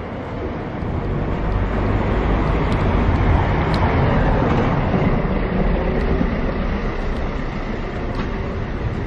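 A car passing at close range in a narrow street, its engine and tyre noise swelling over the first few seconds and then holding.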